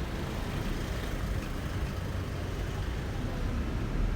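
Steady low rumble and noise of a moving road vehicle, heard from inside.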